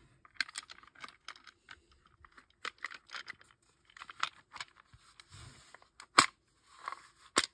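Clicks and rattles of a Byrna TCR launcher's plastic body halves being handled and fitted back together, with two sharper snaps near the end.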